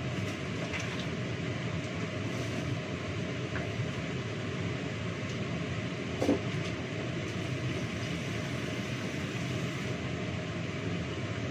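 A steady low rumbling noise, with one short clatter about six seconds in.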